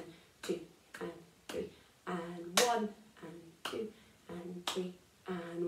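Hand claps, about two a second, marking the beats and half-beats of a slow three-in-a-bar rhythm, with a louder clap about every three seconds on the first beat of each bar. A woman's voice counts "1 and 2 and 3 and" along with the claps.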